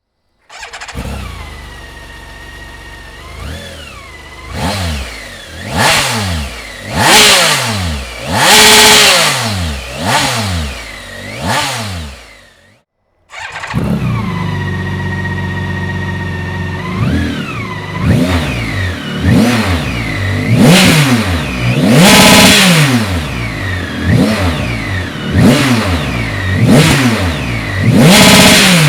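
BMW K1600 GTL inline-six engine through an aftermarket Dominator HP1 exhaust, idling and then revved again and again, each rev rising and falling back. It breaks off briefly to silence a little before halfway, then idles and revs repeatedly once more.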